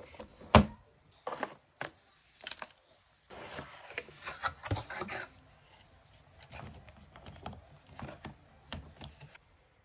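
Handling of a cardboard box of gouache paint jars, paper and a sketchbook: a sharp knock about half a second in, a few lighter knocks, then a couple of seconds of cardboard and paper rustling. Near the end, soft taps and rubbing as fingers move over the plastic jar lids.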